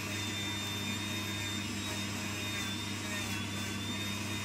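Rotary tool spinning a wire wheel brush against a die-cast metal toy truck cab, scrubbing off old paint and rust. It runs steadily, a high motor whine that wavers slightly in pitch over a low hum and the hiss of the bristles on the metal.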